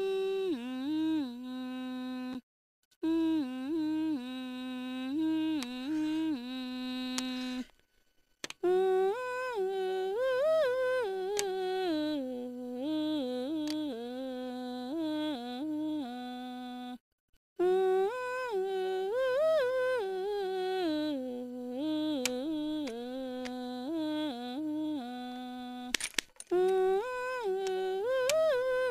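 A single voice humming a wordless Naga folk tune, in long held notes with ornamented turns between them, breaking off briefly for breath a few times between phrases.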